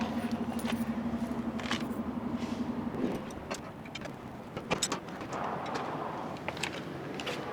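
Car jack being lowered by hand: a steady low hum that stops about three seconds in, then scattered metallic clicks and knocks.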